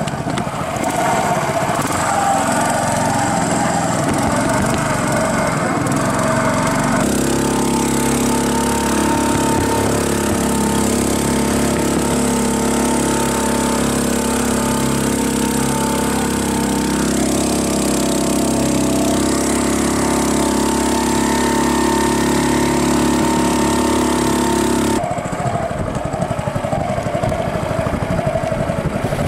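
Small fishing boat's engine running steadily under way. Its note switches abruptly to a steadier, fuller drone about seven seconds in and back again near the end.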